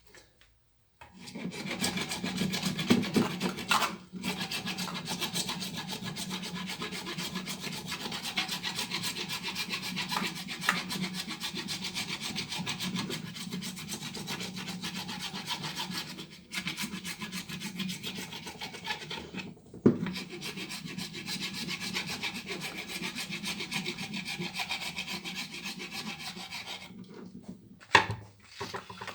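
Cured epoxy filler on a steering wheel rim being smoothed by hand with an abrasive: fast, continuous rasping strokes with a few brief pauses.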